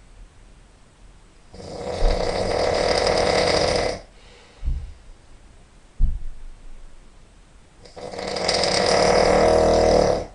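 A person snoring very loudly: two long, rattling snores about six seconds apart, each lasting over two seconds, with short, quieter sounds between them.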